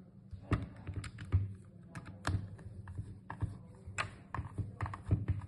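Irregular light clicks and taps of small parts being handled and fitted on a coffee machine's brew group during reassembly.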